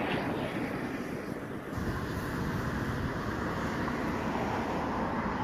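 Steady rumble of a distant ATR 72-500 turboprop airliner climbing away on a go-around, mixed with wind on the phone's microphone. It grows a little louder about two seconds in.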